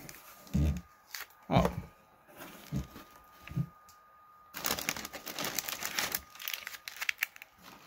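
White packing paper crinkling and rustling as hands dig into a cardboard box, densest for about two seconds just past the middle, with a few soft bumps before it.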